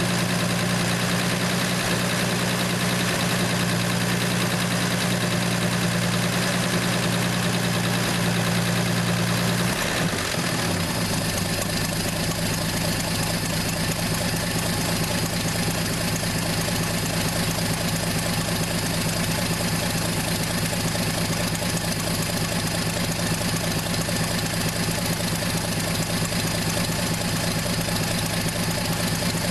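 1968 Plymouth Valiant's slant-six engine idling steadily. About ten seconds in, the idle speed drops to a slightly lower, steady idle.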